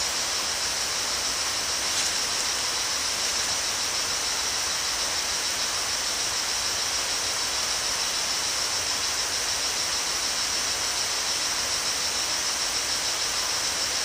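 Steady rainforest ambience: an even, high-pitched insect drone over a constant hiss.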